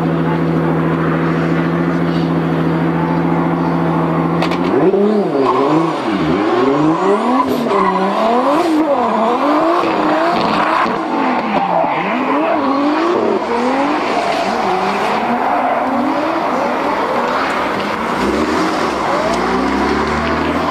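Drift car's engine idling steadily, then launching about four and a half seconds in and revving up and down over and over as the car drifts, with tyres squealing.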